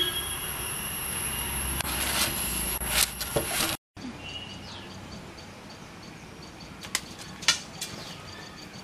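An arrow being pulled out of a target board, a few short clicks and scrapes about three seconds in, over steady outdoor background noise. After a brief dropout comes quieter outdoor ambience with faint bird chirps and two more short clicks.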